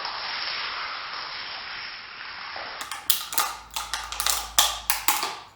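A steady scraping hiss, then a quick run of short, sharp cutting strokes from the freshly sharpened hand-forged knife being tested for sharpness.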